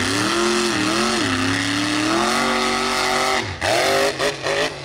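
Mud truck engine revving hard, its pitch dipping and climbing, then rising steadily for about a second before breaking into a few quick throttle blips near the end.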